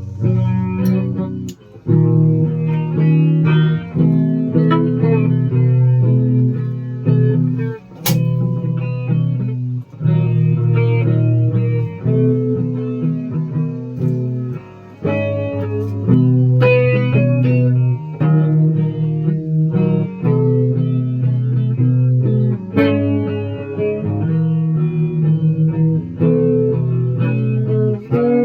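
Guitar playing a song: a steady run of plucked notes and chords, with a few brief pauses between phrases and a single sharp click about eight seconds in.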